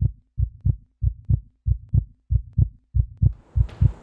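Heartbeat sound effect: steady pairs of low thumps, about one and a half beats a second, with a faint hiss coming in near the end.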